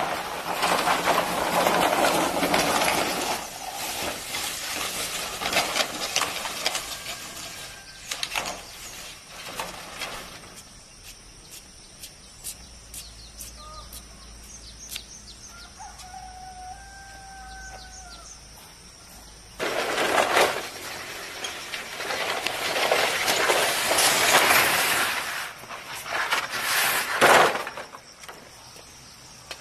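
Long green bamboo poles dragged scraping across a concrete yard and dropped clattering onto a pile. The scraping stops for several seconds halfway through, when a few short bird calls are heard, then starts again, ending with another clatter.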